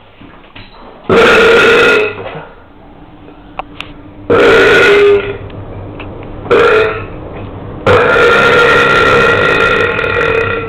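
A person belching loudly four times: two belches of about a second each, a shorter one, then one long drawn-out belch lasting nearly three seconds near the end.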